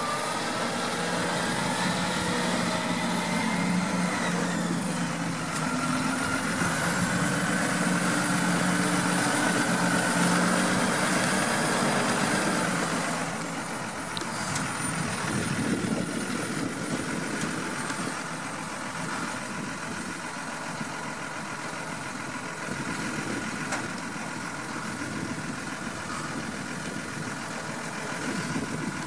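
John Deere 6215R tractor's six-cylinder diesel engine running steadily under load while working a mounted fertiliser spreader, with a steady whine above the engine note. It is louder for roughly the first thirteen seconds, then quieter and steady.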